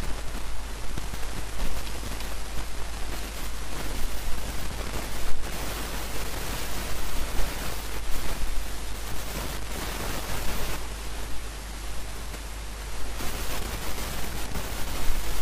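Steady hiss of microphone and recording noise, with a low hum underneath.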